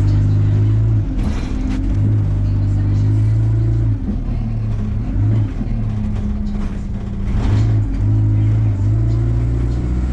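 Diesel engine of an Alexander Dennis Enviro200 single-deck bus in motion, a steady drone whose pitch steps up and down a few times as it works through the gears. Two short hissy noises cut in, one about a second in and one a little past seven seconds.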